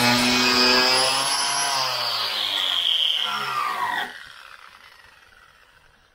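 Electric angle grinder cleaning up the bare steel of a car door shell, its whine sagging in pitch as it bears on the metal. About four seconds in it is lifted off and switched off, the whine falling and fading as the disc spins down.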